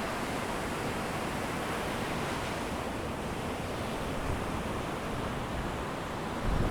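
Steady rushing sound of sea surf and wind, with a deeper wind rumble swelling near the end.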